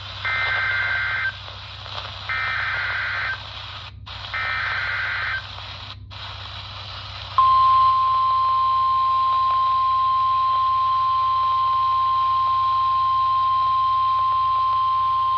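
NOAA Weather Radio emergency alert on a weather radio receiver: three short bursts of SAME header data tones, each about a second long, then the steady 1050 Hz warning alarm tone that starts about seven seconds in and holds, over faint radio hiss. It is the start of a tornado warning broadcast.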